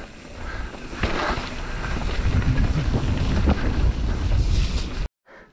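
Wind buffeting a helmet-mounted camera's microphone, with the rumble and knocks of a mountain bike riding fast down a dirt trail. It grows louder about a second in and cuts off suddenly near the end.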